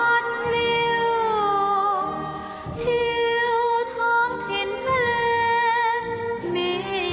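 Music with a singing voice holding long, sliding notes.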